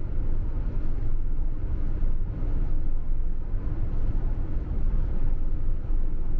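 Campervan driving at road speed: a steady, low rumble of engine and tyre noise.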